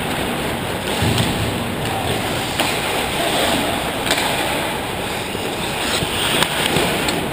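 Ice hockey play on a rink: a steady hiss and scrape of skate blades on the ice, with a few sharp clacks of sticks and puck.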